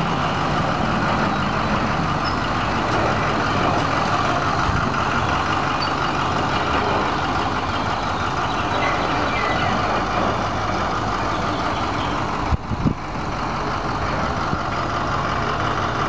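Diesel engine of a semi tractor hauling a shipping container, running steadily as the rig creeps past at low speed. About twelve and a half seconds in there are a couple of brief sharp knocks.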